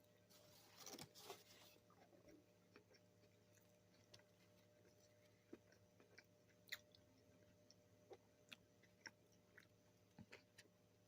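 A person chewing fast food: a burst of crunching bites about a second in, then scattered small wet clicks of chewing.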